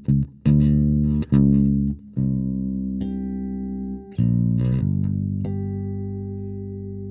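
Solo electric bass guitar played through Hartke HL bass cabinets. A few quick plucked notes give way to longer ringing notes with a high chiming harmonic on top. A final chord is left to ring and slowly fade away.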